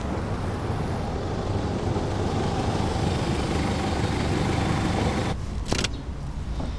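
A car's engine and road noise, swelling and then cutting off suddenly about five seconds in, followed by a single short click.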